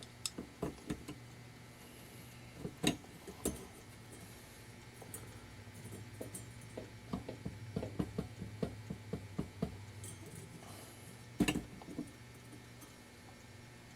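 Scattered small metallic clicks and taps of a hand tool working the rusted nut on a halogen oven's fan blade, with a quick run of clicks about seven seconds in and a louder knock near the end.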